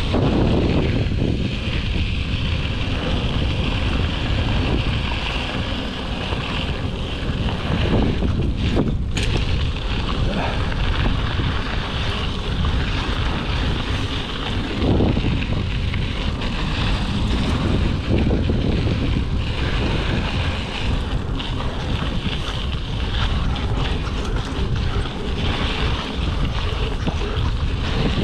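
Wind rushing over a GoPro's microphone while a Giant Talon mountain bike rolls along a dry, gravelly dirt trail, its tyres crunching and rumbling on the ground.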